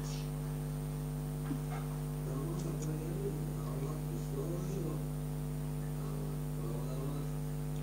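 Steady electrical mains hum, with faint indistinct wavering sounds in the middle few seconds.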